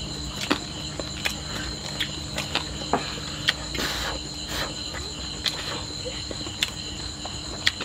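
Crickets trilling steadily, with scattered sharp clicks and a short rustle about four seconds in as a grilled frog is handled and lifted from a wicker basket.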